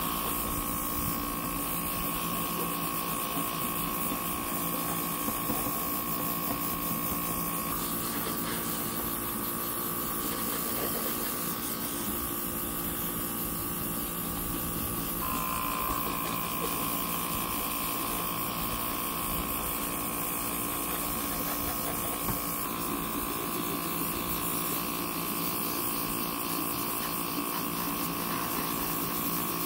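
Airbrush spraying a light mist coat of paint: a steady hiss of air, over the continuous whine of a small airbrush compressor motor, whose pitch shifts slightly twice.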